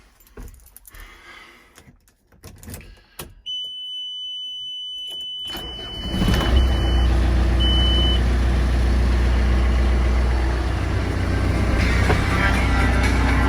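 A few quiet clicks, then a steady high warning beep as the ignition comes on; about six seconds in a diesel engine of a construction machine starts and runs on at a steady idle, with two short beeps as it settles.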